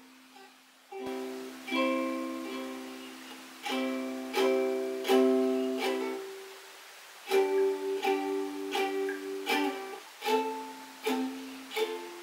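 Ukulele chords strummed one at a time, each left to ring and fade; the strums are slow and spaced at first, stop briefly about six seconds in, then come quicker.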